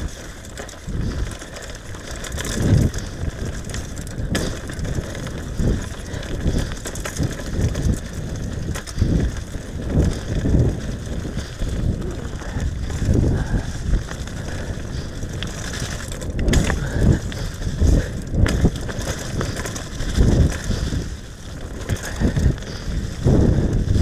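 Downhill mountain bike rattling and thumping over bumps at speed, tyres running on mud and leaf litter, with irregular low knocks from the bike and trail throughout.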